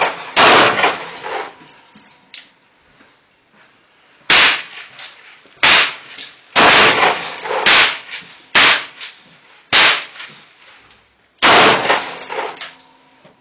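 Glock 17 Gen 4 9mm pistol firing eight single shots, each trailing off in a short echo. One shot comes about half a second in, then after a pause of about four seconds seven more follow roughly a second apart.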